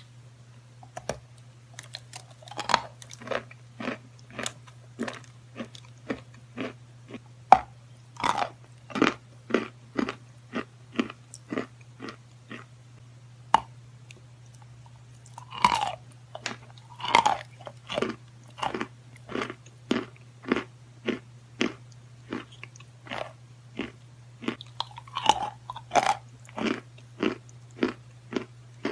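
Close-miked crunching of natural white chalk being bitten and chewed, a steady run of crisp crunches about one to two a second, with a steady low hum underneath.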